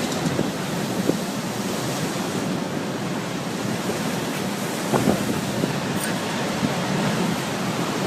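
Steady rushing noise of storm wind and rough sea surf, with wind buffeting the microphone and a brief louder gust or wave surge about five seconds in.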